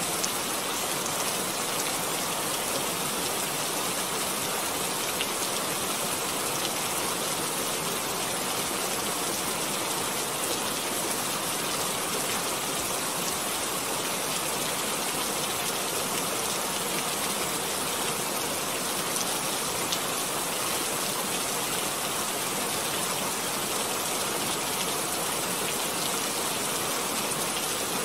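Steady, unchanging hiss of noise, even like heavy rain or white noise, with no distinct events.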